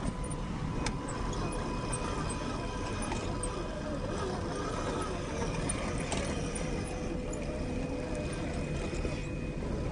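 Scale RC rock crawler (Axial SCX10 II with a 550 21T motor) crawling over rock, its motor and gearbox giving a faint steady whine over a low rumble, with scattered small clicks.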